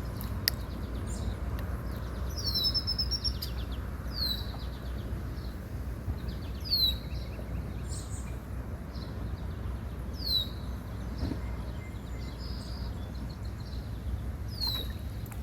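A songbird calling repeatedly, each call a short, high chirp falling in pitch, every second or two, over a low steady rumble. A single sharp click sounds about half a second in.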